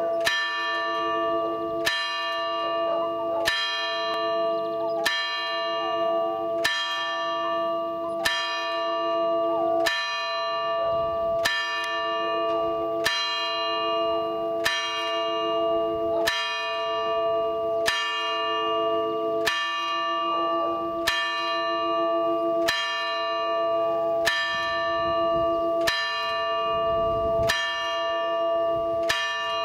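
A church bell in an open steel-frame bell tower tolling steadily, struck about once every one and a half seconds, each stroke ringing on into the next with a pulsing hum.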